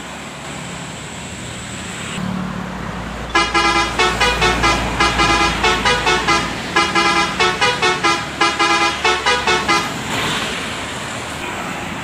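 Telolet horn on a passing tanker truck playing a fast multi-note tune as a run of quick toots, about three a second, with a short break midway, over road traffic.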